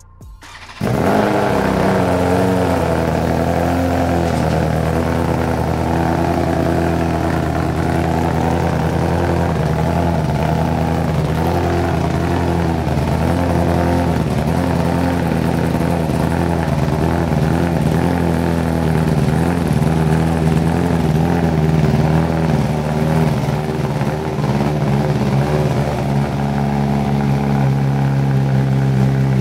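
BMW M1000RR's inline-four engine firing up about a second in on its first start with a new full titanium Arrow header, then idling steadily.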